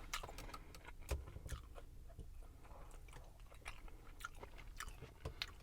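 Close-up chewing of a Big Mac: faint, irregular soft wet clicks and smacks of a mouth working through a burger.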